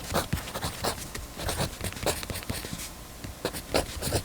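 Pentel mechanical pencil writing on paper: quick, irregular scratching strokes of the lead.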